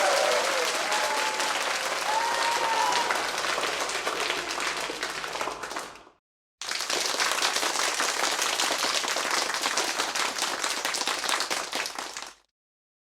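Audience applause, a dense crowd clapping with a few voices calling out in the first seconds, fading away about six seconds in. After a short silence a second round of applause starts, runs steadily and fades out shortly before the end.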